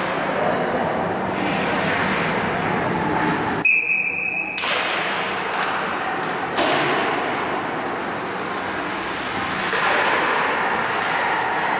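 Ice hockey play on the rink: skates scraping the ice and sticks knocking, with a single short steady whistle blast, the referee's, about four seconds in.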